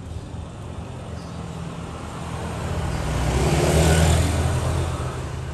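A motor vehicle passing by, growing louder to a peak about four seconds in, then fading.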